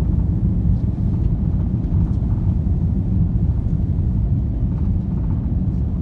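Steady low rumble of an Airbus A330-300's engines and airflow heard inside the cabin from a window seat over the wing, on final approach with flaps extended.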